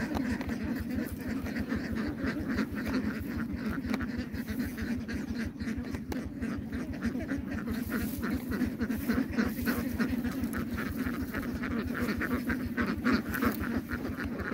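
A flock of ducks quacking continuously, many calls overlapping.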